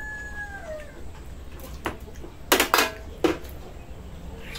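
A rooster's crow trails off in the first second. Then come several sharp clinks of dishes and eating utensils, three close together about two and a half to three and a half seconds in.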